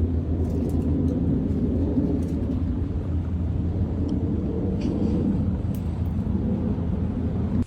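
Steady low rumble with a few faint clicks over it.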